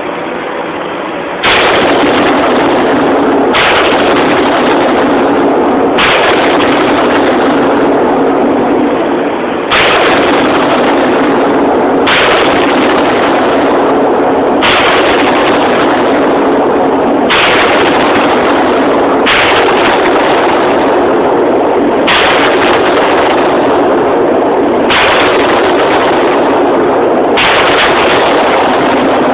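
AR-15 rifle fired in slow, aimed semi-automatic shots, one every two to three seconds, about eleven in all. The phone recording is overloaded, so a harsh, loud noise fills the gaps between the cracks.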